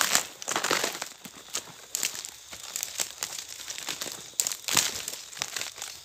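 Dry leaves, grass and twigs crackling and rustling in irregular bursts as someone pushes through the brush on foot, loudest just after the start and again about four and a half seconds in.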